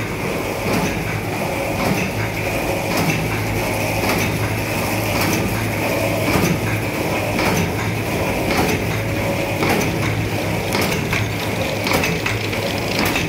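Paper-cup blank punching machine running: a steady low hum and high whine with repeated clacks, about one to two a second, as printed cup blanks are cut from the paper reel.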